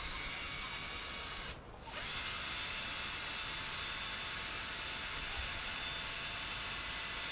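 Electric drill running steadily, twisting a coiled nylon lanyard line to reverse its spiral. It stops briefly just under two seconds in, then starts again and runs on.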